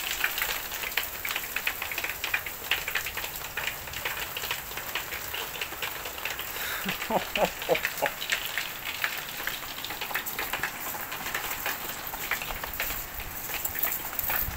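Steady patter of rain with many sharp ticks of drops striking hard surfaces.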